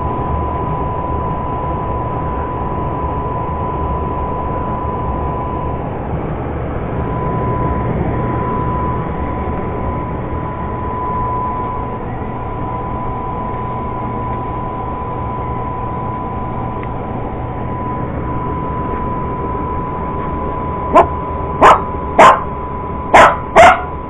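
A steady hum and hiss with a constant high whine runs throughout. Near the end a cocker spaniel barks sharply about five times in quick succession.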